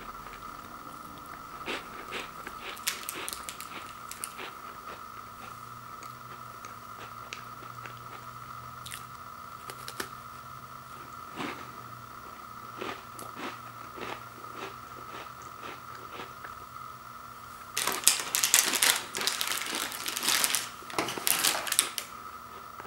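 Close-up crunching and chewing of peanut butter sandwich crackers, in scattered short crunches. Near the end comes a loud stretch of about four seconds of plastic snack wrapper crinkling as it is handled.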